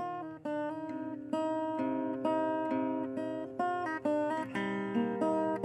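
Background music: a plucked string instrument picking out a melody, note after note, each note starting sharply and fading.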